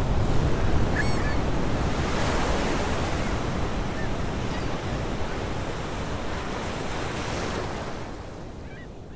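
Ocean surf breaking and washing ashore in a steady rush that fades out near the end. A short bird call sounds about a second in, and a few more calls come as it fades.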